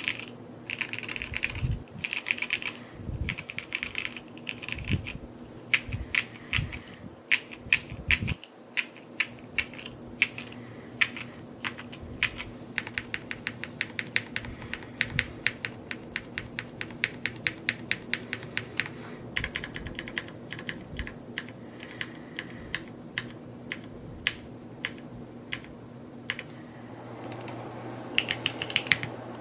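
Someone typing steadily on a Neo65 Cu 65% mechanical keyboard: a fast, uneven run of key clacks, with a few deeper thumps in the first eight seconds or so.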